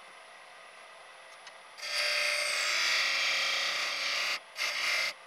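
A hand tool scraping against wood spinning on a lathe, in two passes. A long scrape begins about two seconds in, and a shorter one follows near the end, over the machine's low hum and faint high whine.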